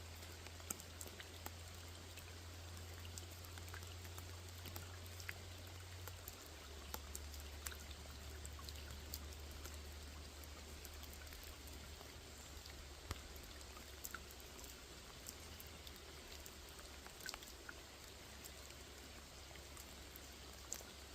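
Steady rain falling on a small lake, an even hiss with individual drops ticking sharply here and there. A low steady hum runs underneath, dropping slightly in pitch about six seconds in.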